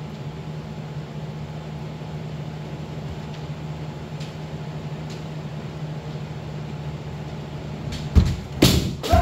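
Steady low hum of the dojo's room noise. Near the end, three sudden hits about half a second apart: a heavy foot stamp on the wooden floor, then two sharp cracks of bamboo shinai striking in kendo practice.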